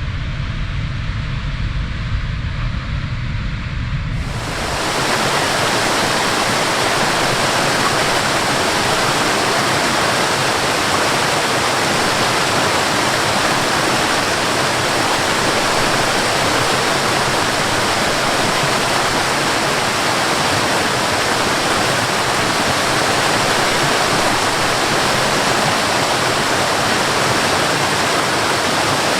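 Waterfall water rushing steadily. About four seconds in, the sound changes abruptly from a deeper rumble to a brighter, louder rush that then holds steady.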